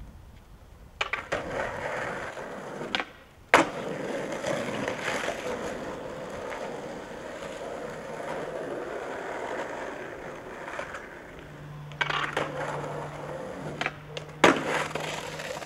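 Skateboard wheels rolling on rough asphalt with a steady grinding rumble. Sharp board clacks come from tail pops and landings, the loudest about three and a half seconds in and more near the end.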